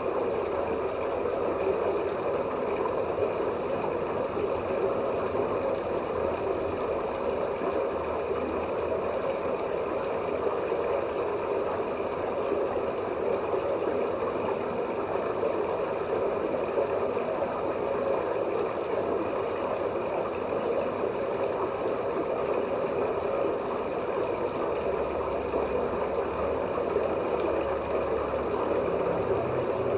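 Steady rush of circulating water with a gurgle, in a pond full of angelfish.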